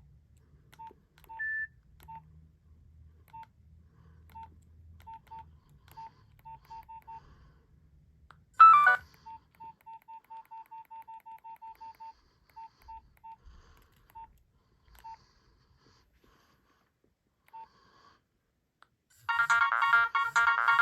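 Nokia 6010 mobile phone keypad beeps: short single-pitch beeps, some spaced out and some in a quick run, with one louder brief electronic tone about nine seconds in. About a second and a half before the end, a ringtone starts playing loudly.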